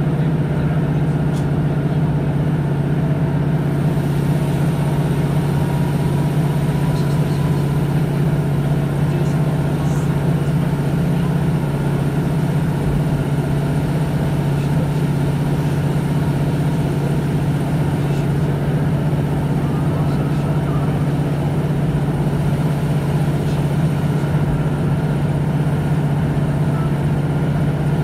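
Inside a ScotRail Class 156 diesel multiple unit under way: the steady drone of its underfloor Cummins diesel engine, mixed with the train's running noise.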